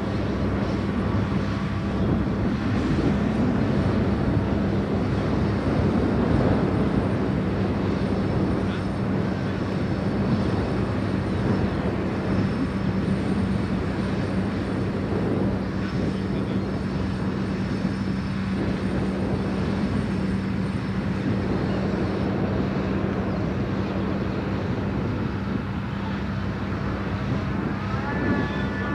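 Liebherr LTM 1500 mobile crane's six-cylinder diesel crane engine running steadily under load while the crane works the hoist: a constant drone with a steady low hum. A rising whine comes in near the end.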